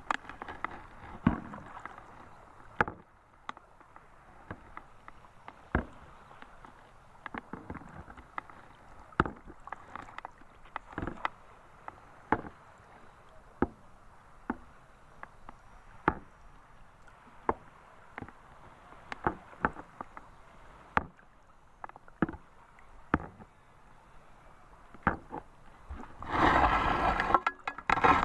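Small lake waves slapping and knocking against a small boat's hull, a sharp knock every second or so over a low wash of water. A louder rushing noise lasts about two seconds near the end.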